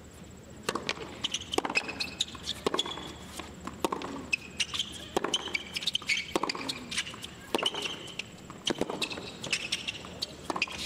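Hard-court tennis rally: racket strikes and ball bounces at a steady pace, about one a second, with tennis shoes squeaking on the court between shots.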